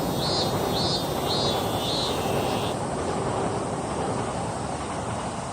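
Steady, even outdoor background rushing noise, with a bird calling about four times in quick succession during the first half and then falling silent.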